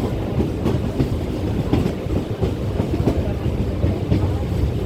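Local passenger train running on the track: a steady low rumble of wheels and carriages with sharp clacks from the rail joints, roughly one a second.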